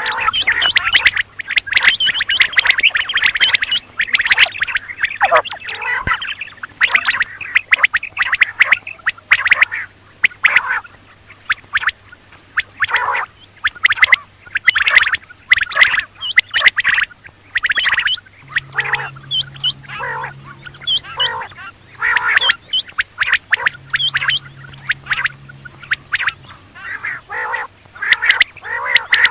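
Quail calling over and over in quick runs of short, sharp chirping notes, with brief pauses between the runs. A steady low hum sits underneath, and a low droning tone joins it twice in the second half.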